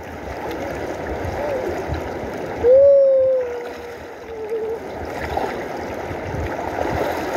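River water running and splashing around people bathing in it. About three seconds in, a voice holds one long note for about a second, the loudest sound, with a few brief voice sounds around it.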